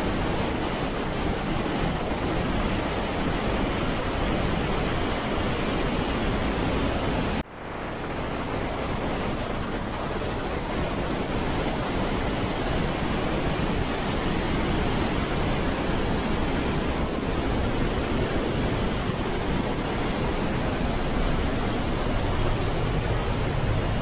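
Glacier-fed waterfall torrent rushing through a narrow rock gorge, a steady, dense roar of white water. About seven seconds in, the sound drops away briefly and swells back.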